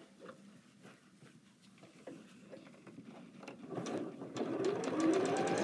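Domestic electric sewing machine stitching a drawstring-bag casing seam. It is paused for about three seconds, with only a few faint clicks. Then the motor starts again partway through and its whine rises in pitch as it speeds up to a steady stitching run.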